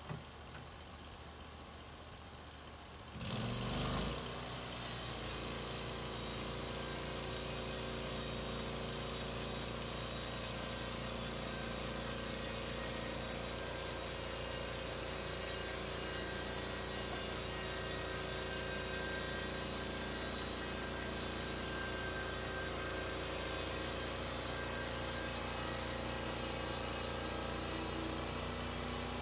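Norwood LumberPro HD36 V2 portable sawmill's gas engine starting about three seconds in, then running steadily at idle.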